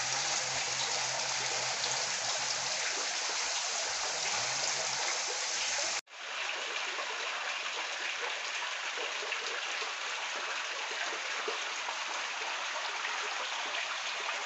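Steady rush of running water in a tilapia hatchery's egg-hatching setup. It breaks off for a moment about six seconds in, then carries on the same.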